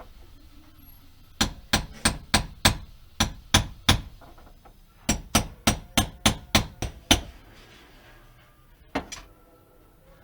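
Hammer blows in two quick runs of about eight strikes each, roughly three to four a second, with a short pause between them and one last strike near the end.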